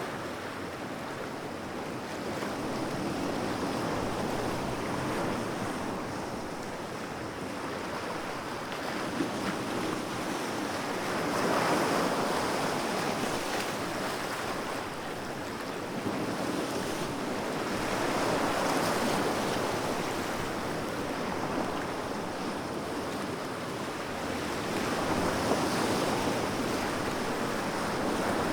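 Sea waves washing in and rolling out, the surf swelling and falling back about every six or seven seconds, with a breeze.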